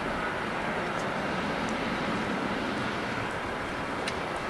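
Jet engine noise of an Airbus A320-200 climbing away after takeoff, heard from the ground as a steady, even rush of sound.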